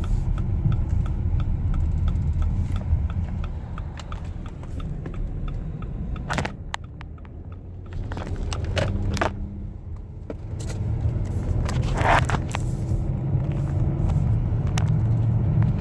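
Car cabin road and engine rumble as the car turns, with a steady turn-signal ticking early on. Several knocks and a scraping clatter come around the middle and again a few seconds later: the phone filming from inside the car tipping over and being handled.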